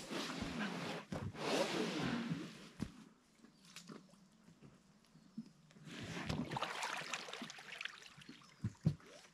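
Water sloshing and splashing against a small boat on a lake, in two louder spells about four seconds apart with a few light knocks between.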